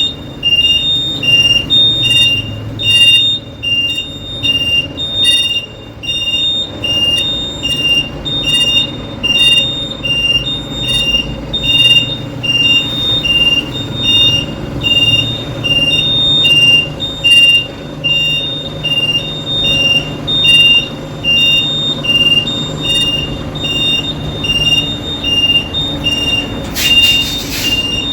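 Reversing siren of a bitrem truck sounding steadily, two high tones alternating about one and a half times a second, over the low running of the truck's diesel engine. A short burst of air hiss comes near the end.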